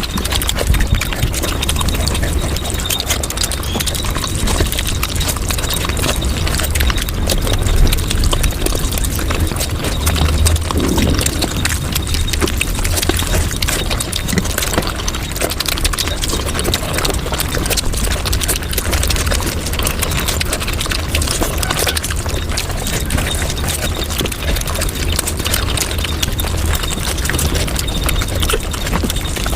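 Close-miked chewing and mouth sounds of eating, sped up about five times into a dense, unbroken stream of rapid clicks and crunches.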